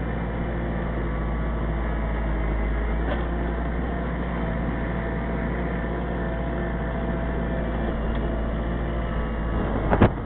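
Kubota L4400 tractor's four-cylinder diesel engine running steadily, with a short sharp knock near the end.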